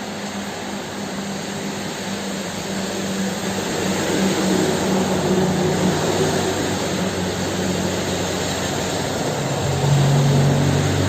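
Steady, heavy rain hiss under a low rumbling hum. The rumble swells from about halfway, drops lower in pitch and peaks near the end.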